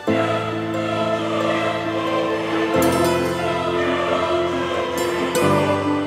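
Music with long held, choir-like chords that come in loudly at the start, then change chord about three seconds in and again near the end.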